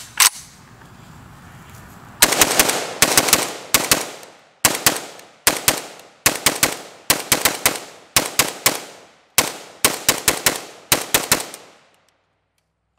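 DPMS Panther Arms Anvil AK-47-pattern rifle in 7.62×39mm firing. Two quick shots come at the start, then after a pause of about two seconds a long string of rapid shots in quick pairs and threes, each trailing off in a short echo. The firing stops about a second before the end.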